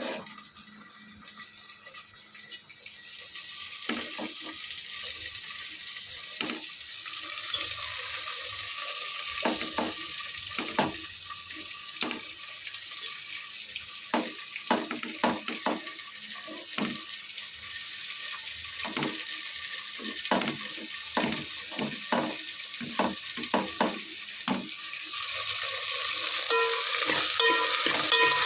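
Tomatoes frying in hot oil with the tempering of onion, dried red chilli and curry leaves: a steady sizzle that grows louder over the first few seconds. A spoon knocks and scrapes against the pan again and again as it is stirred. A pulsing tone joins near the end.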